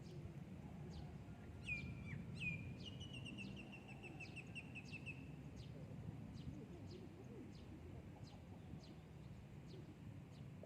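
Bird calling: two sharp downward-sweeping calls about two seconds in, then a fast trill of repeated notes lasting about two seconds. Short, high, clicking notes repeat throughout, over a steady low background noise.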